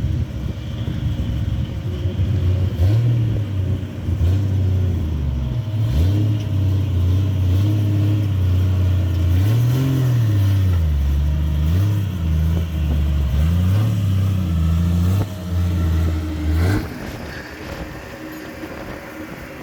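A car engine running and revving, its pitch rising and falling several times, then stopping about seventeen seconds in.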